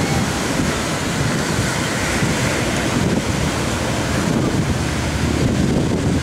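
Ocean waves with wind blowing across the microphone, a steady rushing noise.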